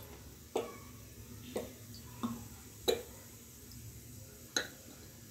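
Cooking oil poured from a plastic bottle into a steel pot on the stove, with about five sharp clicks spaced roughly a second apart over a faint steady background.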